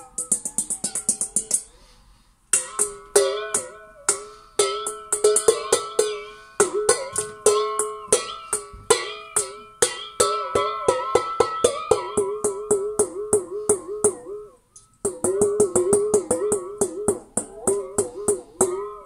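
A stainless steel mixing bowl held by its rim and tapped rapidly by hand as percussion, each tap ringing with a metallic tone that wobbles in pitch. The tapping stops briefly twice, about two seconds in and about three quarters of the way through.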